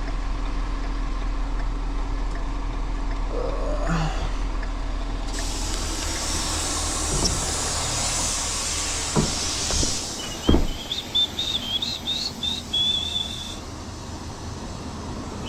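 Tow truck engine idling with a steady low hum, a loud hiss of air lasting about five seconds from the middle on, then a single sharp knock after which the engine hum drops away. High warbling whistle-like tones follow near the end.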